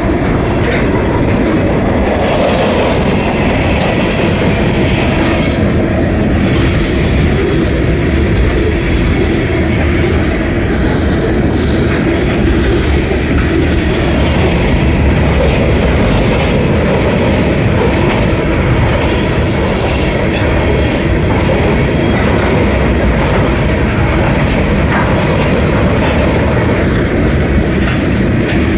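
Freight cars of a Norfolk Southern mixed freight train (covered hoppers and tank cars) rolling past close by: a loud, steady rumble of steel wheels on the rails, with clatter from the trucks.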